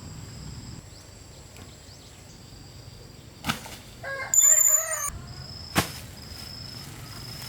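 A short, loud pitched animal call of about a second, midway through, set between two sharp swishes. Under it runs a steady outdoor background with a thin high insect-like hum.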